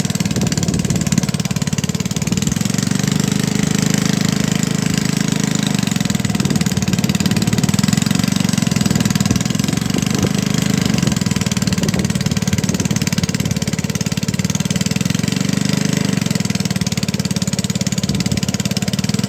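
Small petrol engine aboard a wooden boat running steadily, driving the generator for electrofishing.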